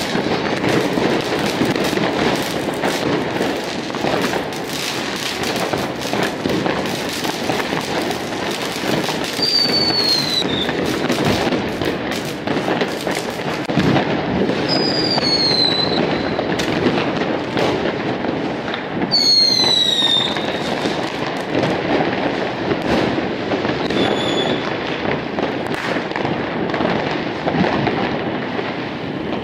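Many fireworks going off at once: a continuous dense crackle of firecrackers and bangs. Three short falling whistles from whistling fireworks cut through it, about ten, fifteen and nineteen seconds in, with a brief fourth one near the end.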